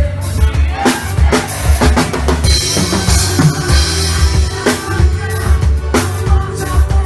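Live forró band playing an instrumental passage with no vocals: a driving drum kit and bass beat, with a cymbal wash swelling a few seconds in.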